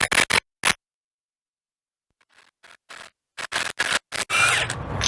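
Sharp metallic clicks and short rattles in quick groups as the bolt and old tooth come off a tub grinder hammer, with a stretch of dead silence about a second in and a steadier noise near the end.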